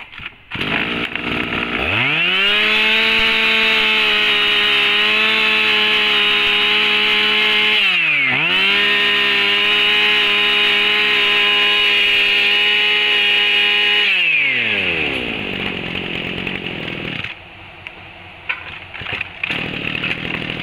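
Echo 230 brush cutter's small 23cc two-stroke engine catching about two seconds in and running at high revs, with one brief dip in speed about eight seconds in. It winds down near the end.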